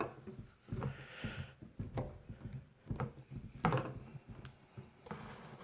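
Plastic Play-Doh tubs and toy pieces being handled: scattered light clicks and taps, with a short rubbing scrape about a second in.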